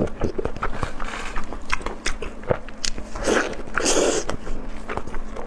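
Close-miked biting and chewing of a lamb intestine bundle: a quick run of short bites and chews, with a couple of longer, louder mouth sounds about three and four seconds in.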